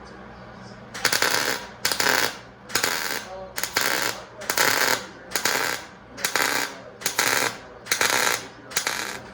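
MIG welder laying a row of short welds: nine crackling bursts of about half a second each, evenly spaced, over a low steady hum.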